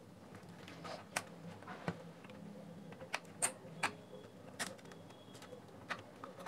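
Faint, irregular small clicks and taps of metal tweezers prying cable connectors off the circuit board inside a plastic Bluetooth speaker housing.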